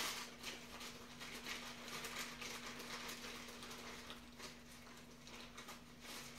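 Faint, irregular clicking and rustling of hands handling small plastic model parts and mounting sticks, busiest in the first second, over a steady low electrical hum.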